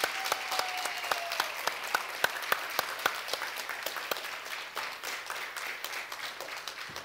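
Congregation applauding, with many hands clapping. The clapping thins a little toward the end.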